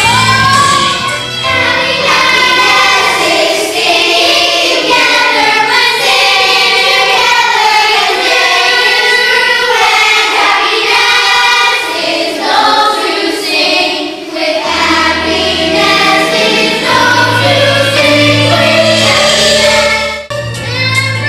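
A chorus of children singing a show tune together over instrumental accompaniment, breaking off briefly near the end.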